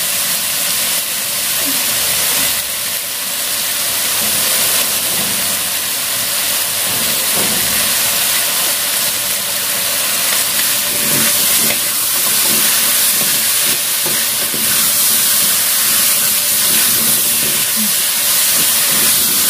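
Chicken and potato pieces sizzling in oil and soy sauce in a wok, a steady hiss as the sauce is cooked down until dry. The pieces are stirred near the end.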